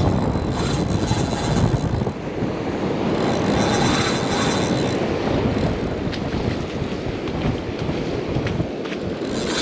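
Wind buffeting the microphone over the wash of breaking surf, with a faint high whine for a couple of seconds near the middle.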